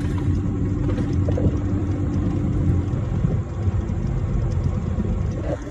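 A machine running steadily: a low rumble with a constant hum tone, with a couple of faint knocks about a second in and near the end.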